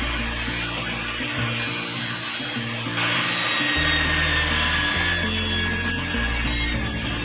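Table saw ripping a length of rosewood, the cutting noise growing louder about three seconds in as the board feeds through the blade, with background music.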